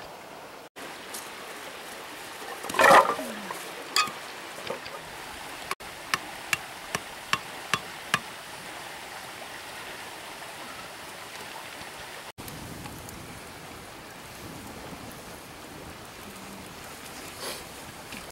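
Steady rushing of a river, with a louder rustle about three seconds in and a quick run of sharp clicks a little later.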